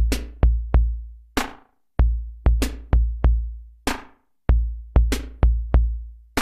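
Intro music: an electronic drum-machine beat of deep bass-drum booms, each fading slowly, and sharp snare-like hits. The pattern repeats about every two seconds: three or four booms, then one sharp hit.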